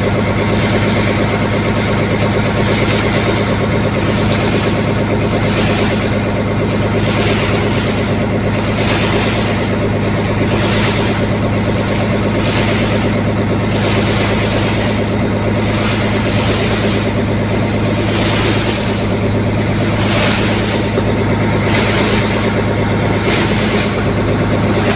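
A boat's engine running steadily, a loud low drone heard on board, with a hiss of rushing noise that swells about every two seconds.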